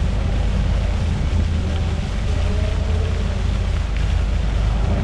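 Wind buffeting an action camera's microphone, a heavy unsteady low rumble, with faint distant voices underneath from about two seconds in.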